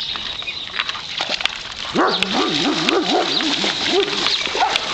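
A dog whining in a run of wavering, up-and-down cries that starts about two seconds in.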